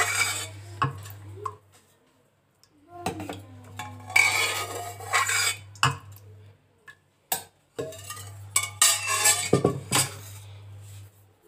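Steel slotted spoon scraping and clinking against the inside of an aluminium pressure cooker as boiled carrots are scooped out of their cooking water, in three bouts with sharp clicks and short quiet gaps between them.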